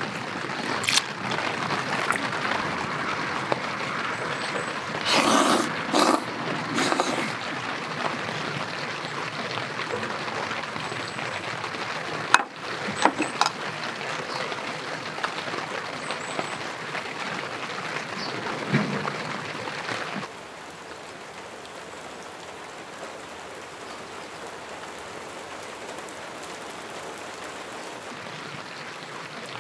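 Steady light rain falling, an even patter, with a few brief louder bursts about five seconds in and a couple of sharp clicks near the middle. About two-thirds of the way through, the rain drops to a softer, even hiss.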